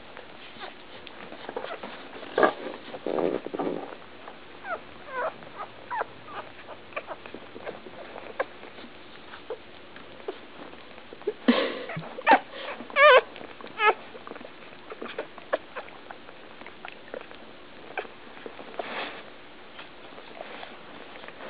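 Day-old Labrador puppies squeaking and whimpering while they nurse, short high squeals scattered among soft shuffling and small clicks. A louder run of warbling squeals comes about twelve to fourteen seconds in.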